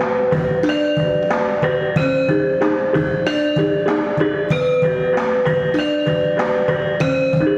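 Rhythmic percussion music: bright, struck pitched notes in a repeating pattern over a steady beat of low drum hits.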